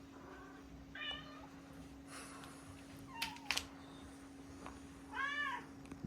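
A house cat meowing twice: a short meow about a second in and a longer, rising-then-falling meow near the end. Two sharp clicks fall between them, over a steady low hum.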